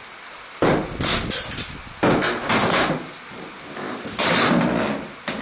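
Wooden boards of a barn wall knocking and scraping as they are worked loose, in four or five loud, rough bursts with a sharp click near the end.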